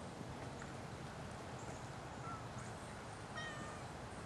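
Quiet outdoor background hiss with a few faint bird calls: a short chirp about two seconds in and a clearer call about three and a half seconds in.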